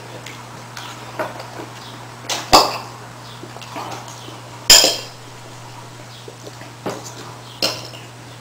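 Eating sounds from someone working through a serving of hot pepper rings: a few sharp clinks of a utensil, the two loudest about two and a half and five seconds in, among quieter mouth noises, over a steady low hum.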